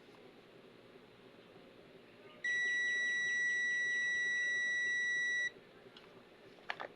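Topre refrigerated-van control box's buzzer giving one steady, high-pitched beep about three seconds long, starting a little before the middle. A couple of light clicks follow near the end.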